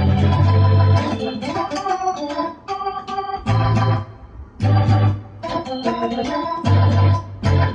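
Electronic keyboard played with an organ-like sound: gospel chords held and changed, with a deep bass note under them, broken by several short pauses.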